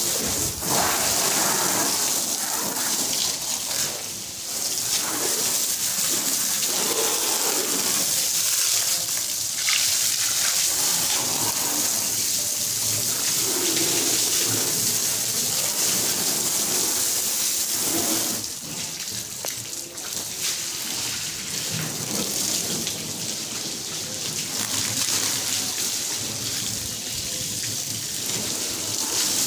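Garden hose spraying a jet of water onto a car's metal bodywork and windscreen, a steady rush of water splashing on the panels and glass.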